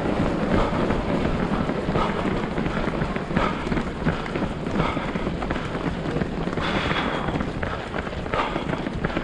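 Wind buffeting the microphone in a steady low rumble, with a runner's regular footfalls on the road coming through as a light beat.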